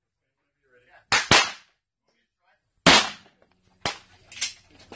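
Gunshots on a shooting range: five sharp shots, two in quick succession about a second in, the loudest near the middle, then two fainter ones, each with a short echoing tail.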